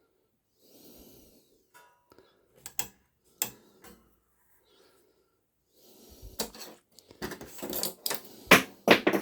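Scattered clicks and knocks of a shoe patcher sewing machine being worked by hand, with soft rustling between them. About six seconds in, the clacks and rattles come thicker and louder.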